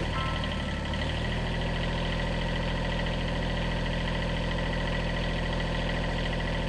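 Kubota B7001 compact tractor's small two-cylinder diesel engine running steadily at low revs, its note settling about a second in.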